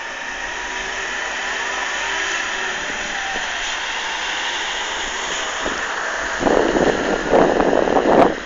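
Steady hiss of a vehicle passing on the wet road. From about six and a half seconds in, rough gusts of wind buffet the phone's microphone.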